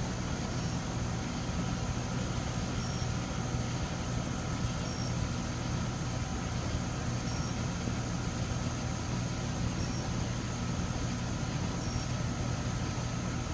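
A machine running steadily with a low, even hum. Above it are a faint steady high tone and a short high chirp about every two seconds.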